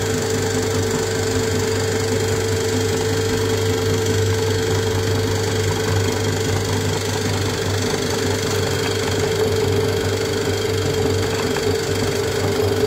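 Meat grinder running with a steady hum, crunching and crackling as it grinds polymer clay into dry crumbs through its perforated plate.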